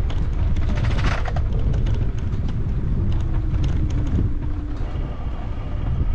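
Outdoor street ambience: a steady low rumble with scattered light clicks and rattles, and a brief burst of rattling about a second in.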